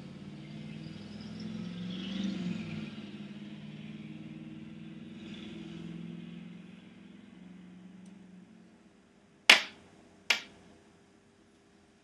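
A low, steady drone that fades out, then two sharp knocks less than a second apart.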